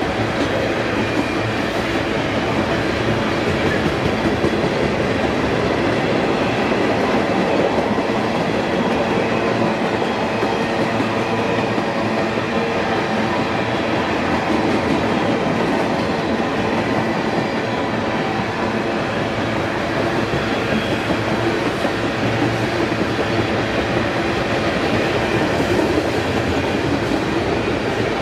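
Freight cars of a mixed train (boxcars and tank cars) rolling past close by: a steady sound of steel wheels running on the rails.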